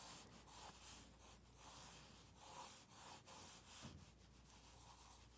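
Faint scratchy swish of a Staedtler Mars Lumograph graphite pencil rubbing on paper as circles are sketched round and round, in soft repeated strokes about two a second.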